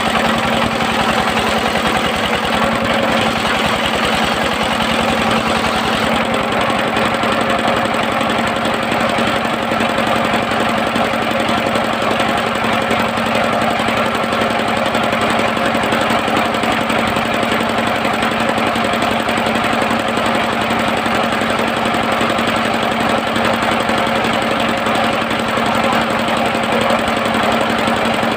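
The engine of a circular sawmill running steadily, a constant even hum with no change in speed.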